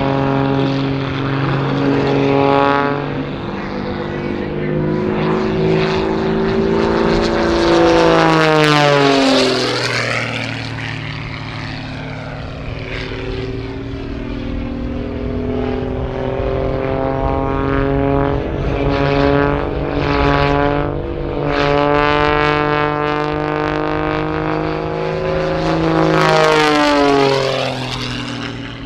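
Pitts Special aerobatic biplane's piston engine and propeller running at display power, its pitch swinging up and down through the manoeuvres. The pitch drops sharply about nine seconds in, as a plane passes, and climbs steeply again near the end.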